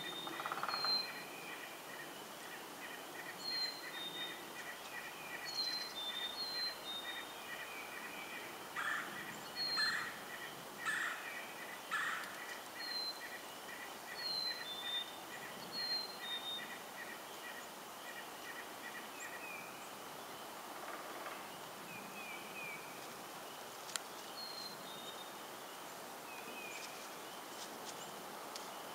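Black-capped chickadee singing its clear two-note 'fee-bee' whistle, a high note dropping to a lower one, repeated many times with a pause past the middle. Another bird's fast trill runs underneath for most of the time, and a few louder, lower calls come at the start and about a third of the way in.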